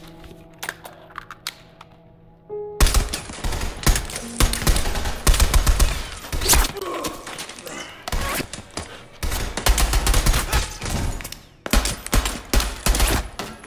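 Automatic rifle fire in long rapid bursts, a film firefight's sound-designed gunshots, starting about three seconds in after a few quieter clicks. Background music plays under it.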